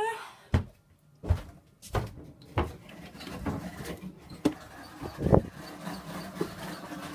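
Footsteps and knocks of someone walking through a boat's cabin: a string of dull thumps, about one every two-thirds of a second at first, then a few more spaced further apart.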